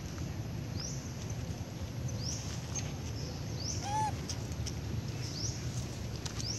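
A bird's high, rising chirp repeating about every second and a half over a steady low background rumble. About four seconds in comes one short squeak, from one of the young macaques scuffling in the grass.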